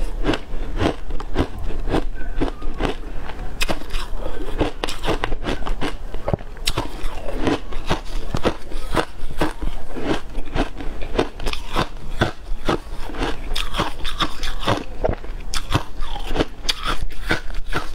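Close-miked chewing of shaved ice mixed with matcha and milk powder: a rapid run of crisp crunches and crackles, several a second, with no let-up.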